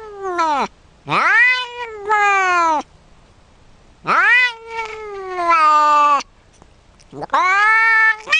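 A grey domestic cat meowing in a run of long, drawn-out calls with short pauses between them, each call rising and then sliding down in pitch.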